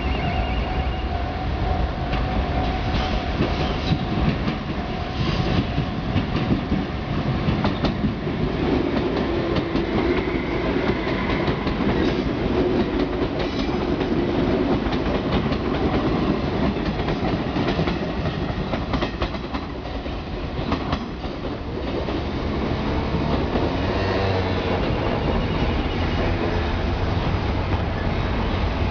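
Limited express electric train running past a level crossing, its wheels clattering steadily over the rail joints. A level-crossing bell rings briefly at the start.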